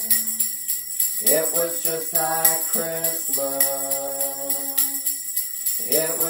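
Sleigh bells shaken in a steady rhythm, with an acoustic guitar and singing voices, in a slow Christmas song performed live.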